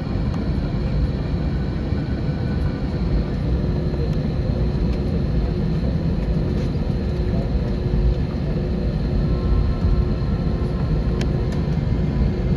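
Steady cabin rumble of an Airbus A321 taxiing after landing: engines at idle and wheels rolling on the taxiway. A faint click sounds near the end.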